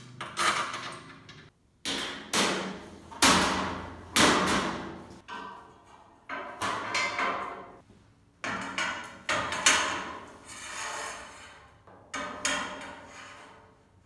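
Hammer blows on metal: about a dozen strikes at uneven spacing, some in quick pairs or short runs, each ringing out for up to a second.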